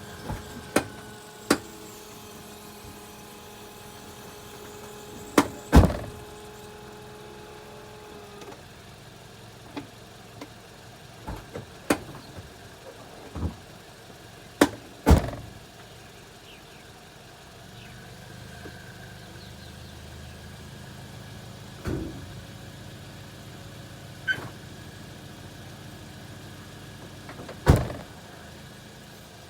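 Sharp clicks and thunks at irregular intervals, about a dozen, from a Land Rover Td5 diesel vehicle that is failing to start. They sound over a steady mechanical hum that drops lower about halfway through.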